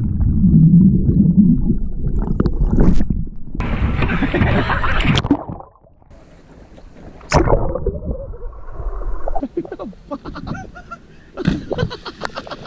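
Lake water heard through a waterproof action camera plunging in after a jump: a muffled underwater rumble and bubbling, then water splashing at the surface, with a cluster of splashes near the end.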